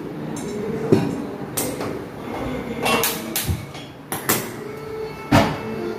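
Kitchen handling noises: a string of sharp knocks and clicks, about eight in six seconds, as a steel water bottle is set down on the counter, the gas stove burner is lit and a ladle is picked up. The loudest knock comes near the end.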